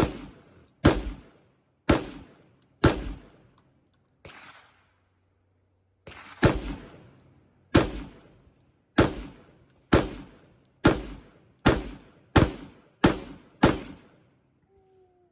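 A semi-automatic firearm fired in single shots, about thirteen in all, each a sharp crack with a short echo. The first four come about a second apart, then comes a pause of a few seconds with one fainter shot in it. The string resumes and speeds up toward the end.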